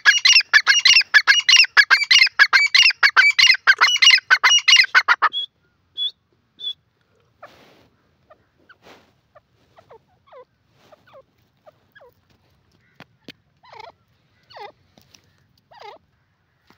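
Grey francolin calling: a loud, fast series of harsh repeated call notes for about five seconds, then only scattered soft, quieter notes.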